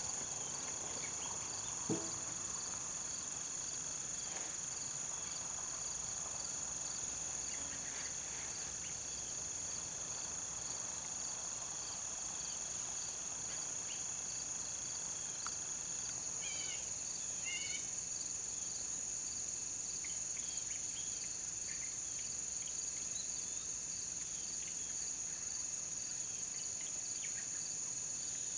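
Steady insect chorus, crickets or similar: a constant high-pitched drone with a rapidly pulsing chirp running beneath it. A few brief bird chirps come in about 17 seconds in, and a single small click about two seconds in.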